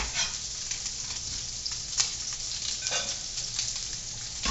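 Chopped red onion and sausage frying in hot olive oil, sizzling steadily, with a few short clicks of a utensil stirring in the pan.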